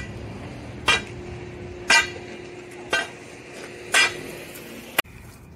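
A hammer striking steel in five ringing metallic blows about a second apart, with the steel humming faintly between blows. The sound cuts off abruptly just after the last blow.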